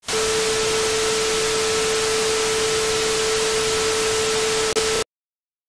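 Television static sound effect: a loud, even hiss with a steady tone under it, cutting off suddenly about five seconds in.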